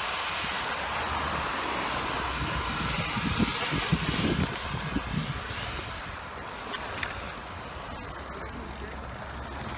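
Steady rush of air and road noise from riding a bicycle along a city street, easing off after about six seconds.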